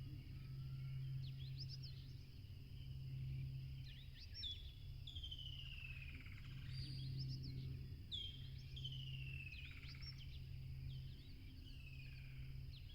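Songbirds calling: quick high chirps, with several drawn-out whistled notes that slide down in pitch, over a steady low background hum.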